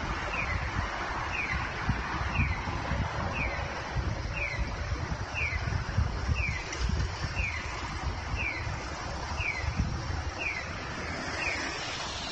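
Japanese pedestrian-crossing acoustic signal playing its 'piyo piyo' bird-call tone: short falling chirps about once a second. The sound comes from a Heisei-era signal unit of the Nisshin No. 21 type, and it tells pedestrians that the crossing is open. Traffic rumble and wind on the microphone run underneath.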